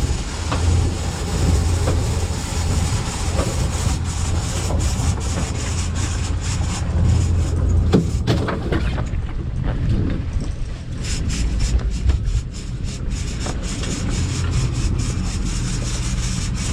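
Boat engine running under power as the boat backs down to chase a hooked sailfish, a steady low rumble with water and wind noise. From about halfway, a fast run of sharp clicks and rattles comes in over it.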